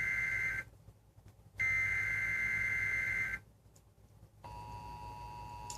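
Emergency Alert System SAME header on a TV broadcast: high, buzzing data bursts, one ending just after the start and a second full burst of under two seconds after a one-second pause. About four and a half seconds in, the steady two-tone EAS attention signal begins, heralding a severe thunderstorm watch.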